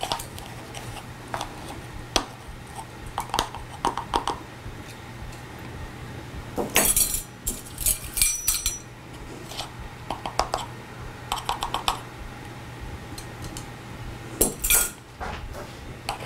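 Measuring spoon clinking and scraping in a baking powder container as baking powder is scooped out and levelled, in scattered short taps and clusters of taps, with a steady low hum underneath.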